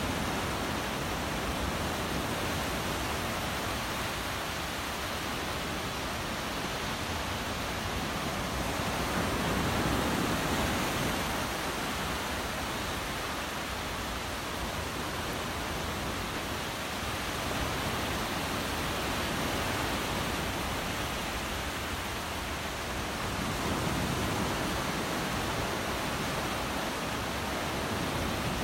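Surf on a beach: a steady rush of waves washing ashore, swelling gently every several seconds.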